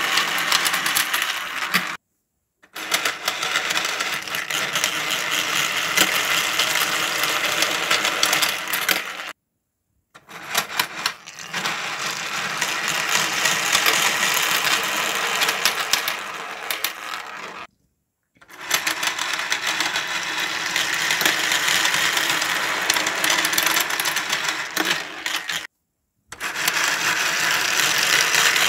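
Marbles rolling and clattering continuously through a hand-cranked 3D-printed plastic marble machine, a dense rattle of many small clicks. It breaks off into complete silence four times, each for under a second.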